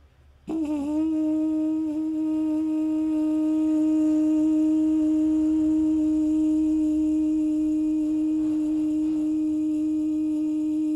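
Trumpet with a practice mute in the bell playing one long held note, a long-tone exercise: it starts about half a second in with a slight dip in pitch, then holds steady and muted.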